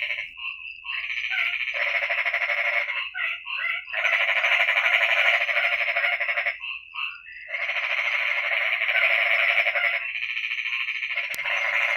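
A chorus of many frogs calling together at night, a dense, rapidly pulsing din that stops for about a second a few times and starts up again.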